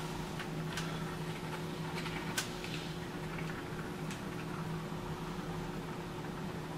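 Canned expanding spray foam being applied around a window frame: scattered light clicks and sputters, the sharpest about two and a half seconds in, over a steady low hum.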